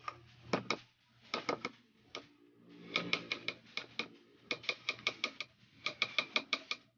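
Metal spoon clinking against the side of a black nonstick pot while stirring thick cake batter, in quick runs of light ticks, several a second.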